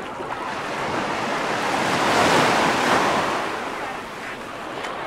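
Mediterranean sea wave breaking and washing up the sand of a beach, swelling to a peak about halfway through and then drawing back.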